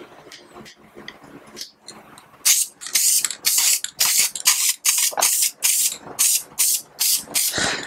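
Aerosol can of auto upholstery spray adhesive spraying in short, rapid hissing bursts, about three a second, starting about two and a half seconds in.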